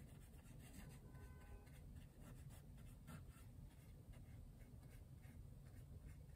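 Faint, irregular strokes of a fine paintbrush on a canvas panel, over a low room hum.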